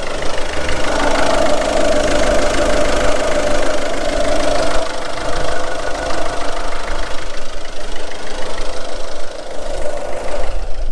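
Mazda 3's 1.6 diesel engine idling steadily while hydrogen from a carbon-cleaning machine is fed into its air intake during a decarbonising treatment for a blocked DPF and EGR. The sound drops out briefly near the end.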